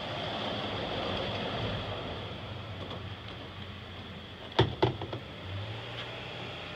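A canoe hull knocks twice in quick succession against the wooden rack over a pickup bed as it is set down, about four and a half seconds in. Under it runs a steady rush of outdoor background noise that swells during the first two seconds.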